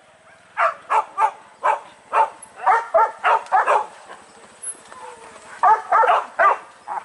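Hunting dogs barking in quick runs of short, loud barks: about a dozen in the first half, a pause of nearly two seconds, then a handful more near the end.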